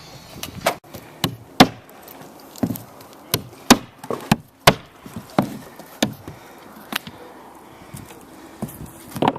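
Hammer blows, about a dozen sharp strikes at an uneven pace, with short pauses between groups.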